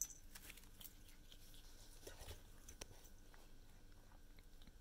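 Faint, scattered clicks and crunches of a kitten chewing dried bonito flakes (katsuobushi), with one sharper click right at the start.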